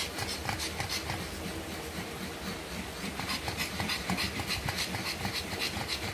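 Pug bitch panting rapidly and evenly, open-mouthed, while whelping: the heavy panting of a dog in labour.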